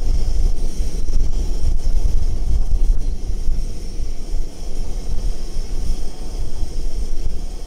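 Wind buffeting the microphone: a loud, fluctuating low rumble with a steady hiss above it.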